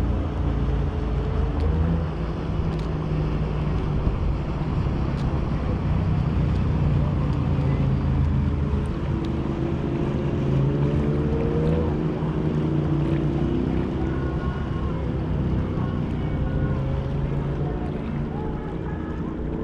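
Outboard motors of boats passing on a river, a pontoon boat and then a runabout, running at cruising speed. They make a steady engine drone whose pitch bends slowly as they go by.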